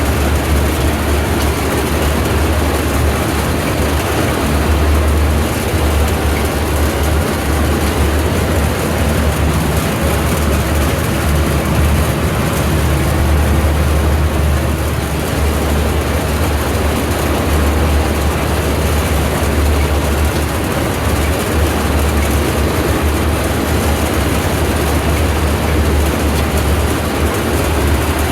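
A heavy engine running steadily at a constant speed, with a strong low hum and no change in pitch.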